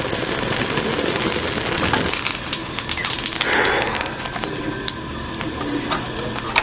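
Food sizzling in a hot pan on a portable gas stove, fat spitting with many sharp pops and crackles.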